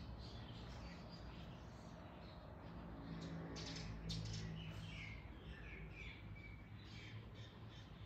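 Several birds calling and chirping, faint, with a run of short falling notes around the middle, over a low steady hum.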